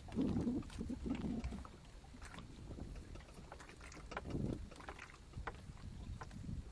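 Small boat drifting on the water: a low, uneven rumble of water against the hull, swelling a few times, with scattered light knocks and clicks.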